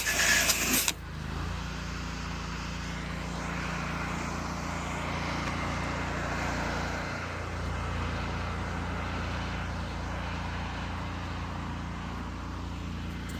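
Pressure washer's engine running steadily, with a loud hiss of spray for the first second that cuts off sharply about a second in, leaving the engine hum.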